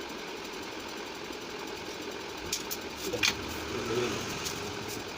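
A steady mechanical hum, with a few sharp clicks and small knocks of handling over it in the second half.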